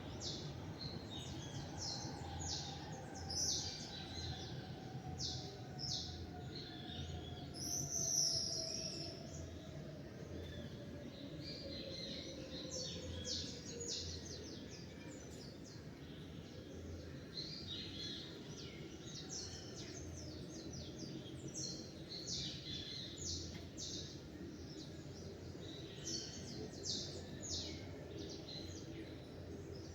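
Many small birds chirping and tweeting in quick, short high calls, over a steady low rumble of background noise. A faint tone slowly falls in pitch during the first half.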